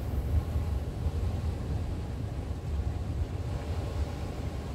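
Wind buffeting the microphone as a steady low rumble, over the wash of sea waves breaking against the rocks below.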